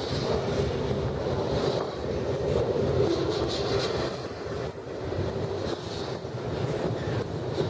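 BNSF double-stack intermodal container cars rolling past close by: a steady rumble of steel wheels on rail, with scattered light clacks and wind noise on the microphone.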